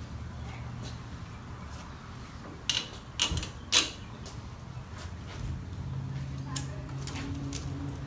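Tools and metal parts clinking and clanking during a motorcycle shock swap: three sharp clanks a little past the middle, the last the loudest, with a few lighter ticks, over a low steady hum.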